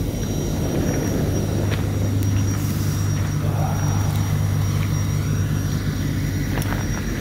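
Steady low drone of a pickup truck's engine and road noise, heard from inside the cab while driving.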